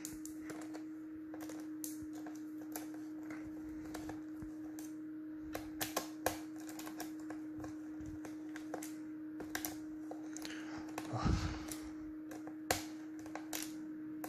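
Small screwdriver clicking and ticking against the screws of a laptop's plastic bottom cover as they are unscrewed, in irregular clicks with a dull thump about eleven seconds in. A steady low hum runs underneath.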